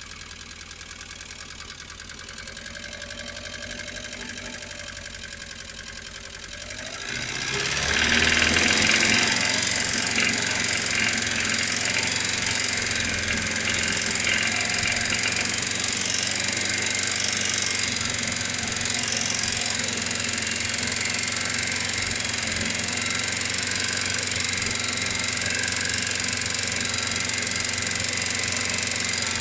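First-generation Kia Sportage engine running with a knock that the owner places in the fourth cylinder. The sound grows markedly louder about seven seconds in and then holds steady.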